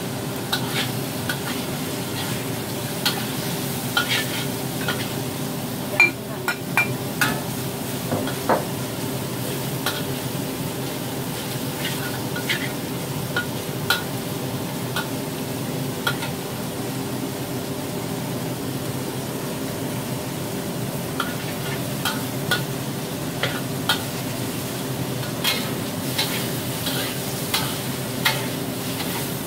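Pork belly and dried tofu sizzling in a wok while a spatula stirs and turns them, with irregular clicks and scrapes of the spatula against the pan. A steady low hum runs underneath.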